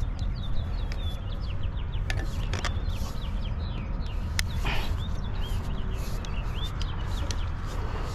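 Birds chirping over and over in short rising and falling notes, over a steady low rumble, with a few sharp clicks.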